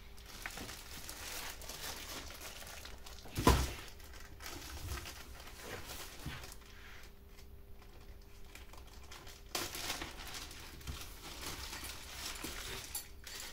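Packaging rustling and crinkling as the contents of a chainsaw's box are handled, with one sharp knock about three and a half seconds in.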